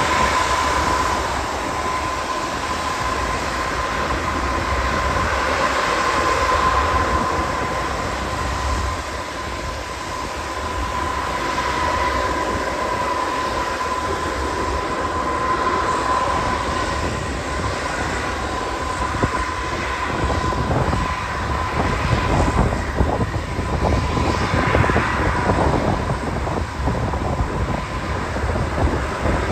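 Aircraft engines running steadily: an even whine over a low rumble that holds level throughout, with wind noise on the microphone.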